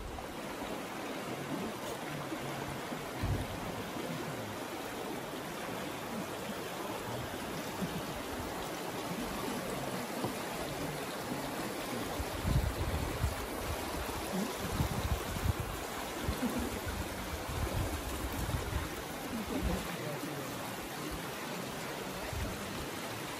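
Water of the Kamenice river rushing steadily, with scattered dull low bumps, most of them in the second half.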